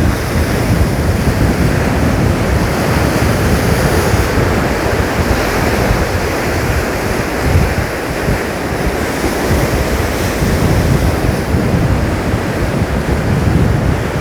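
Heavy surf crashing and rushing on a rocky shore, whipped up by an approaching typhoon, with strong wind buffeting the microphone in a low rumble.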